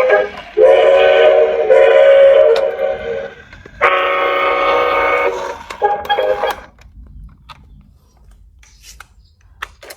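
Battery-operated toy train sounding a recorded train horn through its small speaker: two long, loud blasts, then it fades away, leaving a few faint clicks near the end.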